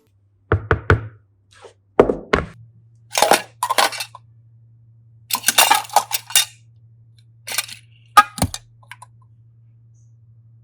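Close-miked handling of Kinder eggs being unwrapped and opened: scattered clicks, crinkly rustles and small cracks. About eight and a half seconds in comes a sharp knock with a low thud. A faint low hum runs underneath.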